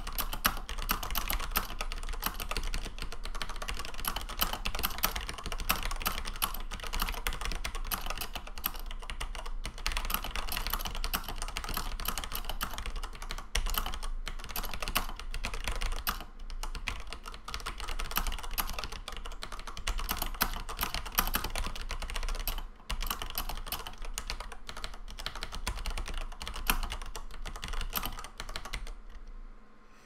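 Fast typing on a vintage Unitek K-150L keyboard with unmodified vintage Cherry MX Black linear switches: a dense, continuous run of keystrokes with a few brief pauses, fading out at the very end.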